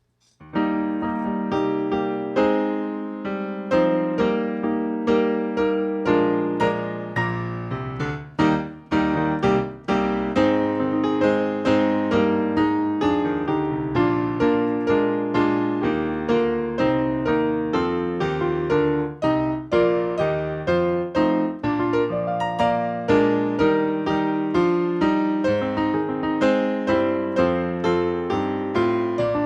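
A keyboard, with an electric-piano sound, playing a song that starts about half a second in.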